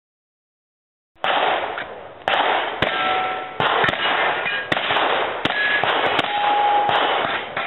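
Revolver shots fired in a fast, irregular string, about eight in all, starting about a second in. Brief ringing tones follow some of the shots.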